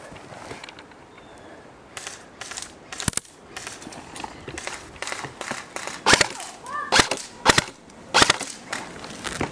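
Airsoft guns firing irregular single shots, a series of sharp pops with the loudest few coming close together in the second half.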